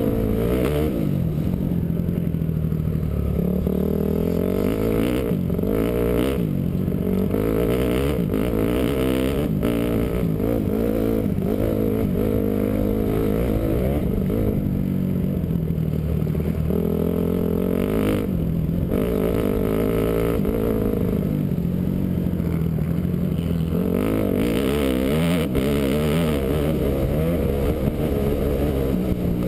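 Honda CRF450 motocross bike's four-stroke single-cylinder engine, heard close up from the rider's helmet camera, revving up and dropping back again and again as the throttle is opened and shifted through the gears.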